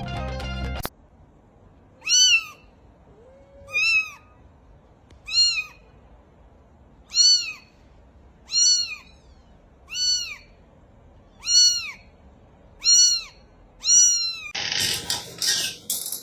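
A cat, high-pitched like a kitten, meowing over and over: nine short calls, each rising then falling in pitch, about one every second and a half. Near the end a loud burst of noise covers it.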